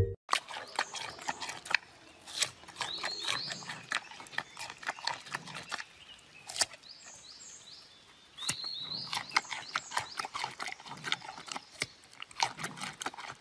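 Giant panda biting and chewing a raw carrot: irregular wet crunches and snaps in quick clusters, pausing briefly about two-thirds of the way through.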